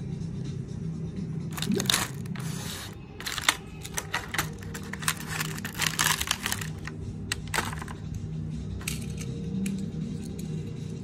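Clear plastic blister tray crinkling and crackling, with light clicks as small toy cars are pulled out and set down, busiest from about a second and a half in and easing off near the end. Background music plays underneath.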